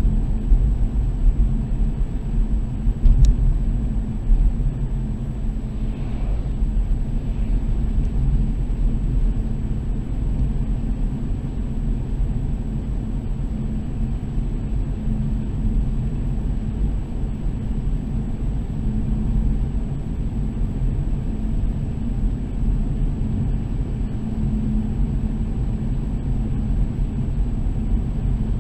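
Steady low rumble of a car driving, with a faint constant high-pitched whine over it.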